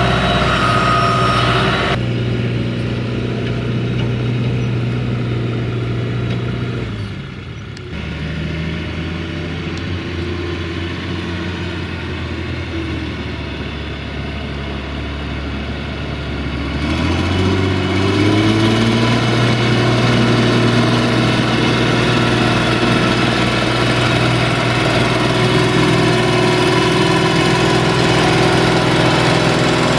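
Diesel engines of farm tractors, a John Deere and a FIAT 1380 DT, running hard under load while plowing wet, muddy ground. The engine note drops lower about seven seconds in and climbs back up around seventeen seconds as the engine revs up again.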